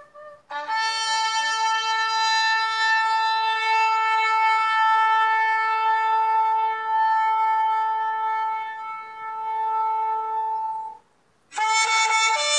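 Shofar sounded in one long, steady blast of about ten seconds, starting on a brief lower note before settling. It breaks off near the end, and a second blast begins right after.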